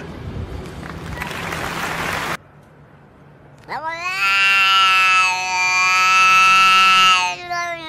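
A domestic cat yowling: a long, drawn-out meow that slides up in pitch at the start and then holds steady for about three seconds, breaking briefly before a second yowl near the end. Before it, for about the first two seconds, there is a rushing noise that cuts off abruptly.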